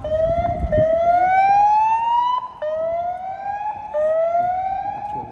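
Emergency vehicle siren, loud, sweeping up in pitch over about a second and a half, then dropping back and rising again, several times over.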